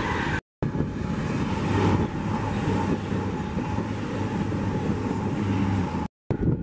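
Class 390 Pendolino electric train passing at speed: a steady rush of wheels on rail and air, with a faint high whine coming and going. The sound drops out briefly about half a second in and again near the end.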